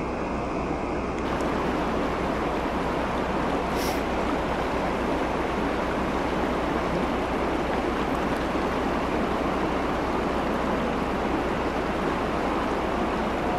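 Shallow, fast mountain river rushing steadily over a gravel bed, with a low steady hum underneath.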